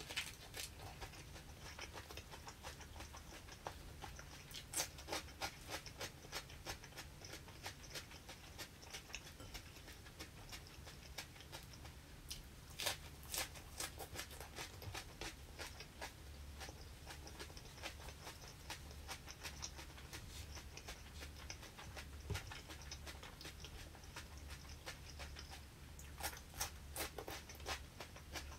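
A person chewing mouthfuls of fresh leafy greens close to the microphone: irregular crunches and mouth clicks that come in bursts, over a low steady hum.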